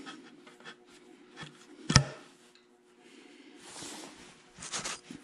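Workshop handling noises: a sharp knock about two seconds in, a short rubbing hiss a little later, and a few light clicks near the end, over a faint steady hum.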